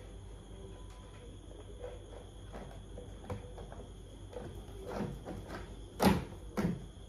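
Hard plastic parts of a battery-operated ride-on toy motorbike being handled and fitted: faint clicks and scrapes, then two louder plastic knocks about half a second apart near the end as the front fairing is pressed into place.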